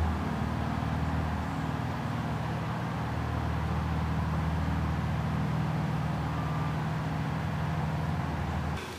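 A steady low engine hum with no words over it, cutting off abruptly near the end.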